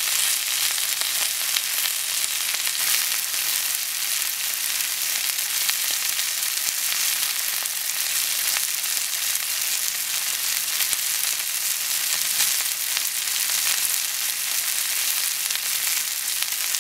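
Beef tenderloin steak searing in a hot pan: a steady sizzle with a fine, continuous crackle of spattering fat and juices.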